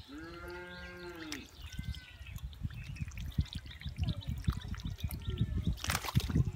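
Hands sloshing and splashing in shallow muddy water as mud is churned and scooped, with a louder splash about six seconds in. At the start, one drawn-out animal call that rises and falls in pitch.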